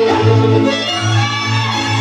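Transylvanian Hungarian folk dance music from a string band: a fiddle melody over bowed accompaniment, with a low bass note pulsing about twice a second.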